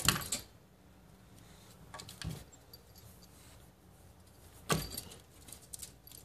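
Claws scratching and tapping on window glass and sill in a few short, sharp bursts: one at the start, one about two seconds in, and a louder one just before five seconds, with faint hiss between.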